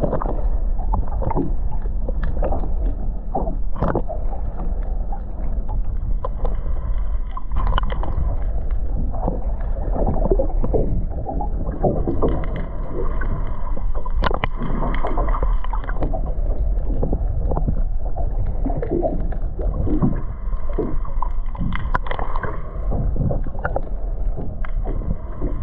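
A fishing boat at sea: a steady low rumble with water slapping and sloshing against the hull and irregular knocks.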